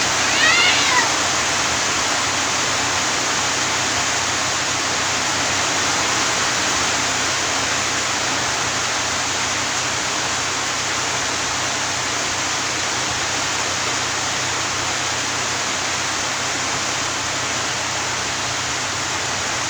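Steady rushing hiss throughout, with a short high-pitched cry that rises and falls in the first second.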